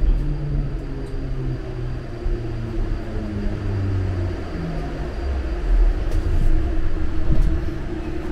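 Subway train braking into a station: the electric drive's low tones step down in pitch over the car's rumble as it slows almost to a stop, leaving a steadier hum near the end.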